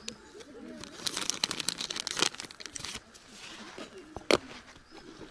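Plastic sachet of gluten fishing-bait powder crinkling as it is cut and torn open, a dense run of crackles about a second in, followed by a single sharp click near the end.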